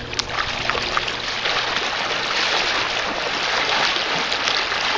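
Chocolate Labrador retriever wading through shallow creek water, a steady splashing and churning of water that grows louder about a second in as she comes close.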